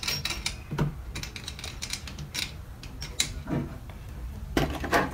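Small metallic clicks and light rattling of screws and a hand tool working on the metal pump head of a Kärcher K4 pressure washer as its screws are set in place: a quick run of clicks at the start, then scattered single ticks.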